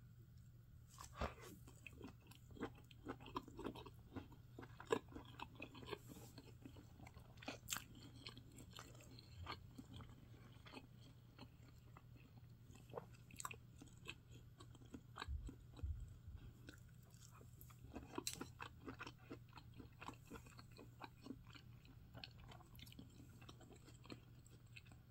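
Faint eating sounds: irregular wet chewing and small crunches over a low steady hum.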